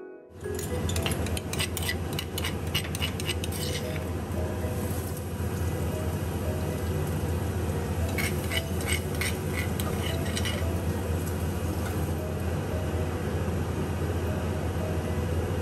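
A metal utensil clinking against a pot or bowl in two spells of quick taps, the second about eight seconds in, over a steady low hum.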